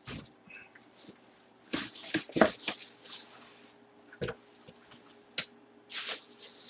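Rustling and scraping of packaging as a full-size football helmet is handled and unpacked from its box, in irregular bursts, with two short sharp clicks in the second half.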